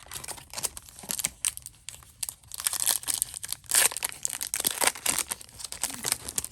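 A foil wrapper of an Upper Deck MVP hockey card pack being torn open and crinkled, a dense crackling that is loudest about halfway through.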